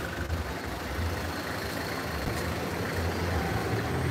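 Motor vehicle engine idling close by, a steady low rumble.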